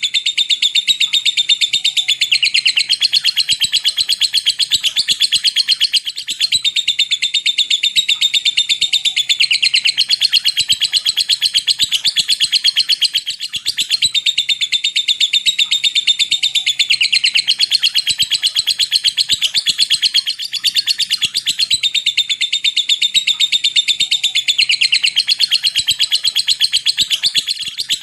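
Lovebird giving a long 'ngekek': a very rapid, unbroken chattering trill of clipped high notes, the 'ngetik' typing-like delivery prized in fighter lovebirds, pausing only briefly a few times.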